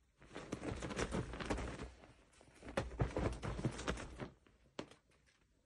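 Cat scrabbling and pouncing on a bed: the sheets rustle with soft paw thumps in two bursts of about two seconds each.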